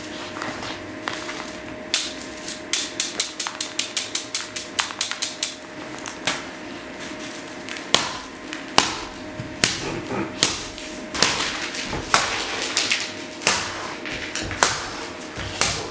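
A series of sharp clicks and knocks, a fast run of several a second early on, then sparser, louder single knocks, over a faint steady hum.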